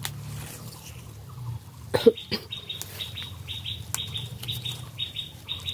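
Bird chirping: a quick run of short, high chirps repeated several times a second, starting about two and a half seconds in. A couple of sharp clicks come just before, about two seconds in.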